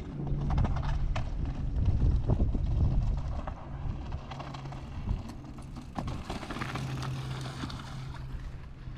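Mountain bike riding over a rough trail: tyres rumbling and the bike rattling with many short clicks, and a steady low hum that drops in and out. It is loudest in the first three seconds.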